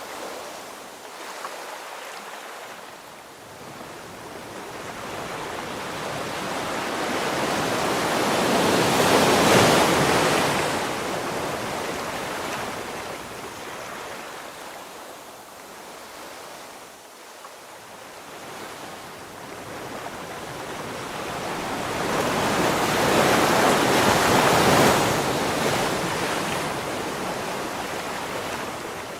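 Ocean waves breaking on the shore: two slow swells of surf, one building to a crash about a third of the way in and another near the end, each washing back out.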